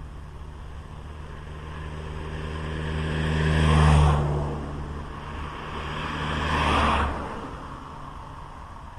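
Motor vehicles passing on the road beside the sidewalk: an engine hum with rushing tyre noise that swells to a peak about four seconds in, dips, peaks again near seven seconds and then fades.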